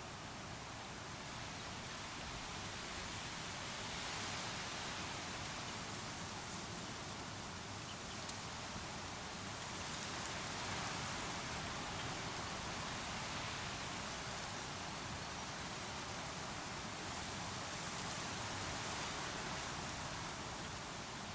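Creek water rushing steadily, a soft even noise that swells gently every few seconds.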